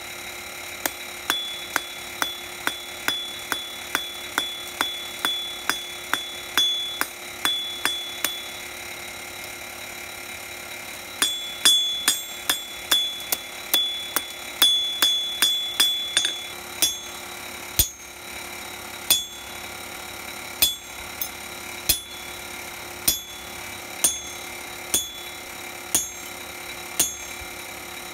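Hand hammer striking a thin steel bracelet bar on an anvil, each blow ringing sharply. Steady blows come about two a second, then pause for a couple of seconds. A quicker run follows, then slower single blows about a second apart.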